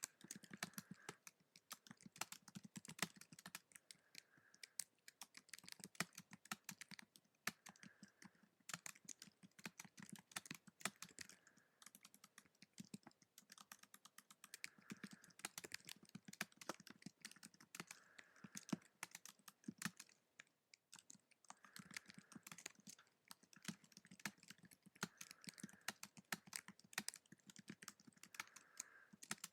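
Typing on a computer keyboard: a fast, steady run of soft key clicks, with brief pauses about twelve and twenty seconds in.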